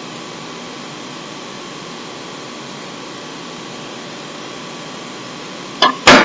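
A steady, even hiss, with two short loud sounds close together near the end.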